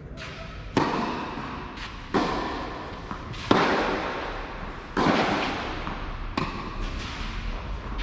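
Tennis balls struck by rackets in a rally, starting with a serve: five loud sharp hits about a second and a half apart, each ringing with a long echo through a large covered hall, with fainter ball bounces between them.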